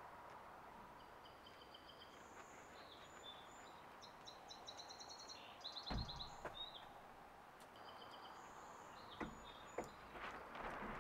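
Faint birdsong: short repeated chirps and quick trills. A single dull thump comes about six seconds in, and near the end there are a few clicks and knocks of parts being handled.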